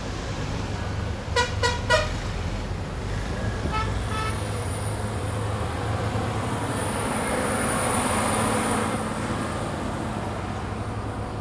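Road traffic with vehicle horns: one horn beeps three quick times about a second and a half in, and another honks twice, fainter and higher, around four seconds. A vehicle then passes, its noise swelling and fading around eight seconds, over a steady low traffic rumble.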